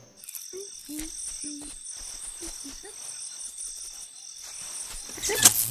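Crickets chirping in a steady, evenly pulsing rhythm, with a few short low squeaks in the first three seconds and a sudden loud burst near the end.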